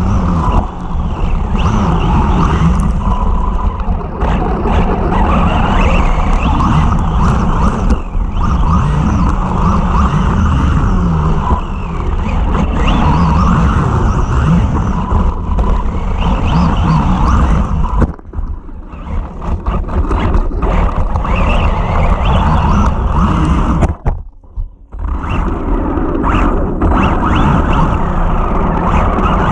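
Arrma Typhon 3S brushless RC buggy, geared with a 20-tooth pinion, running at speed with a wavering motor whine over a steady rush of noise. The sound dips sharply twice, about two-thirds of the way through and again near the end.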